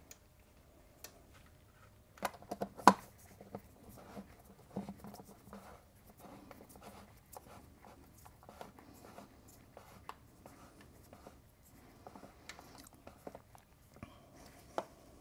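Small clicks, taps and scrapes of an Allen key turning and seating the side-panel screws on a motorcycle, with a sharp click about three seconds in.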